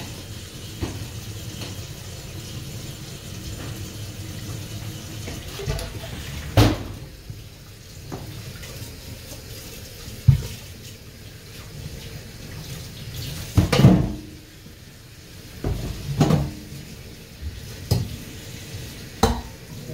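Kitchen tap running into a stainless-steel sink while a metal pot is handled under the stream, with about six sharp clanks as the pot knocks against the sink.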